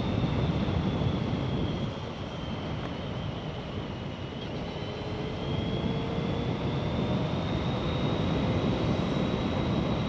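BMW K1200GT four-cylinder motorcycle running on a wet road in the rain, with engine rumble and road and wind noise. It eases off about two seconds in, then picks up again from about five seconds in, its pitch rising.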